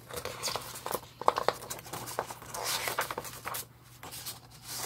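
Paper and record sleeves being handled: a few sharp taps about a second in, then a longer rustling slide around the middle, over a faint steady low hum.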